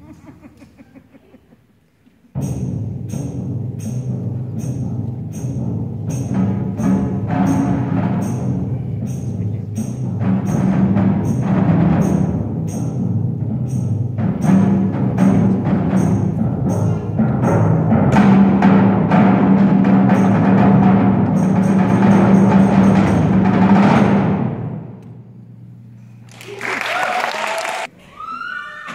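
School percussion ensemble playing a piece on timpani, drums and mallet keyboards, with a steady ticking beat of about two strokes a second over the drums. About three-quarters of the way through the music stops, leaving a low ringing tone that dies away.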